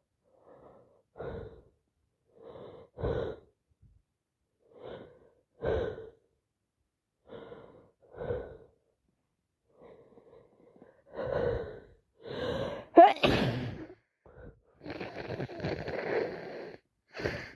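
A woman with a heavy head cold building up to a sneeze: short catching gasps every two to three seconds, coming closer together, then a loud sneeze about 13 seconds in, followed by a few seconds of breathy noise.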